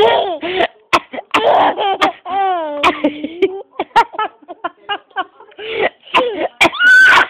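A woman coughing while a baby laughs at it in quick, high-pitched bursts, over and over.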